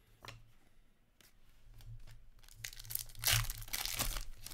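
Foil wrapper of a 2021-22 Upper Deck Artifacts hockey card pack being torn open by hand, a loud crinkling tear that starts about two and a half seconds in and lasts under two seconds.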